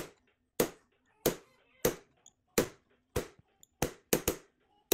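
Mallet tapping a steel pin punch to drive out the planetary's retaining pin on a KitchenAid tilt-head stand mixer: about nine sharp, separate taps, roughly one every half-second, with two coming close together near the end.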